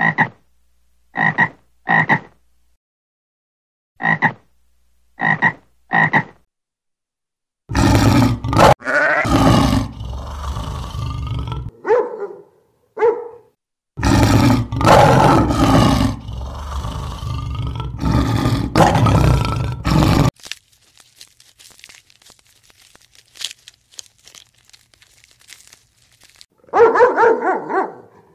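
A frog croaking in short calls, mostly in pairs, then longer, louder rough calls. Near the end a dog starts barking.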